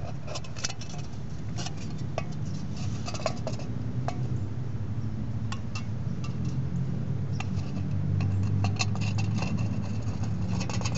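Thin aluminium Foster's beer can being handled and worked by hand: scattered light clicks, ticks and crinkles of the can metal, over a steady low rumble.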